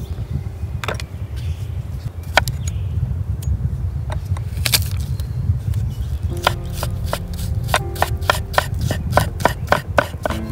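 Knife chopping garlic cloves on a wooden cutting board: a few scattered knocks, then from about six seconds in a quick, even run of sharp chops, about five a second, over a steady low rumble.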